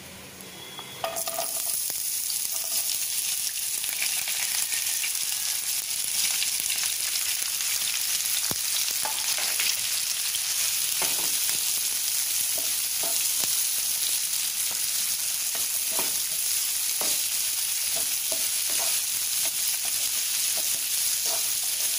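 Chopped onions, green chillies and curry leaves sizzling in hot oil in a non-stick frying pan, a steady hiss that starts about a second in once they hit the oil. From partway through they are stirred with a spatula, giving scattered taps and scrapes on the pan.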